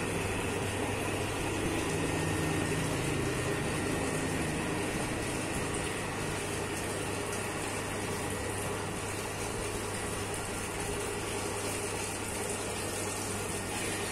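Commercial dough mixer running steadily, its motor humming as the kneading arm churns wet bread dough in a steel bowl.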